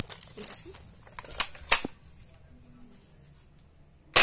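M788 shotgun loaded with plastic pellets being worked and fired at a water-filled plastic bottle: a few sharp clacks and snaps, the two loudest about a third of a second apart, then a louder sharp crack near the end.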